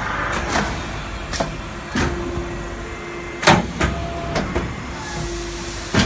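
Automatic sheet-metal HVAC duct production line running: a string of sharp metallic knocks and clanks, the loudest about three and a half seconds in, over a steady machine noise. A motor tone is held twice, about two seconds in and again near the end.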